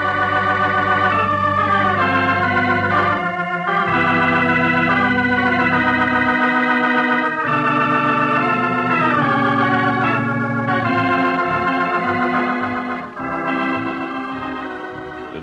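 Organ music: loud held chords that change every second or two, a radio-drama musical bridge between the commercial and the closing credits.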